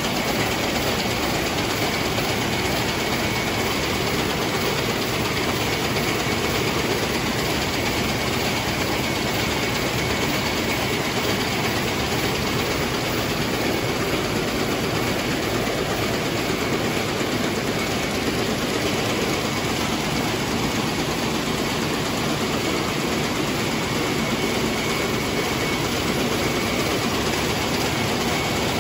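Water-jet weaving looms running: a dense, steady mechanical clatter that does not let up.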